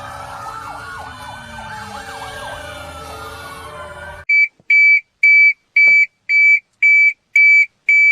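Several warning sirens wailing together, their pitches rising and falling across one another. About four seconds in they give way to a louder, high electronic alert beep pulsing about twice a second.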